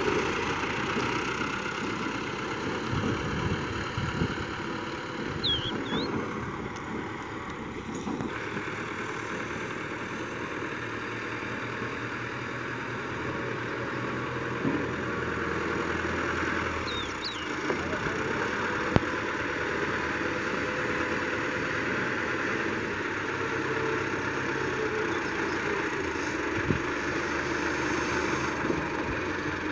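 Fiat 640 tractor's diesel engine running steadily as it drives slowly, pulling an empty tipping trolley. A few short high chirps sound over it, and there is one sharp tick about two-thirds of the way through.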